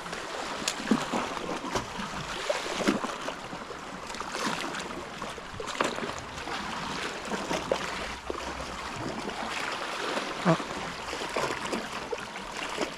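Seawater washing and trickling around rocks, a steady hiss broken by many small irregular splashes.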